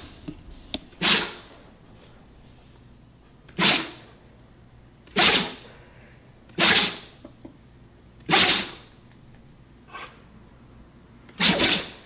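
Siberian husky sneezing six times in a row, a second or two apart, each a short sharp blast, with a fainter sneeze just before the last one.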